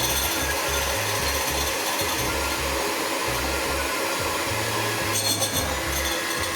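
Electric hand mixer running steadily, beating eggs as sugar is added, with background music playing under it.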